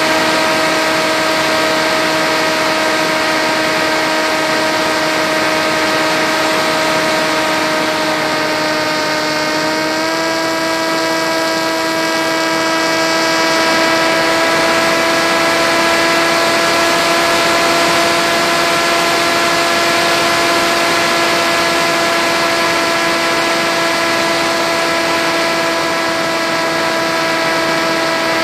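Electric motor and propeller of an FX-61 flying wing RC plane running steadily in flight, heard from the onboard camera with a rush of air noise underneath. The pitch sags slightly, then steps up about ten seconds in and holds.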